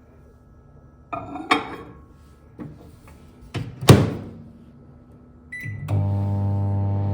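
A few knocks and a loud thump, then a short high beep about five and a half seconds in, after which a microwave oven starts running with a loud, steady hum.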